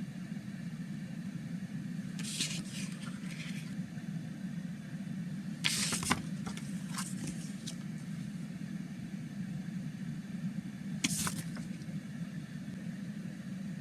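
Handling of a cardboard CD digipak during unboxing: a few short rustles and scrapes, the loudest about six seconds in and another near eleven seconds, over a steady low background hum.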